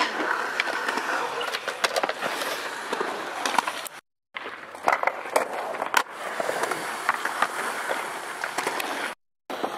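Skateboards rolling on concrete, with sharp clacks and knocks of the boards among the wheel noise. The sound drops out twice to dead silence for a moment.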